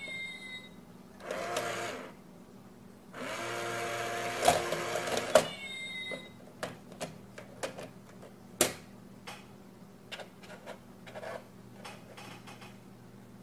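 Small electric motor of a cat-paw coin-stealing bank whirring twice as its lid opens and the mechanism works, the second run longer, with brief chirping tones at the start and about six seconds in. Then scattered clicks and taps as the cat's paw works at the box, one sharper knock about halfway through.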